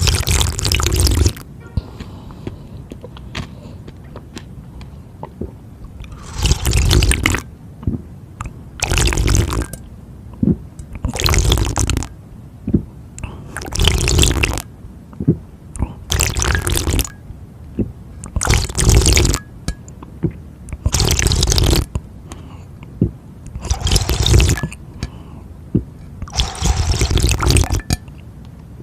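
Water being drunk close to the microphone in about ten loud gulps of roughly a second each, mostly two to three seconds apart, with a longer pause after the first.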